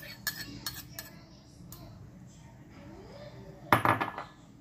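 A metal spoon clinking and scraping against a ceramic bowl as crushed mango is scraped out into a frying pan: a quick series of clinks in the first second and a half, then a louder clatter of dishware about four seconds in.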